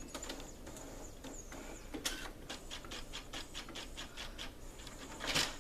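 Brother inkjet printer printing a print-quality check page: its mechanism makes a rapid, even run of clicks, then a louder rasp near the end.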